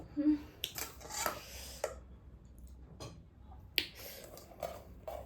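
Close-up eating sounds: a series of short wet mouth clicks and smacks while chewing, about eight spread unevenly over the few seconds, with a brief low hum near the start.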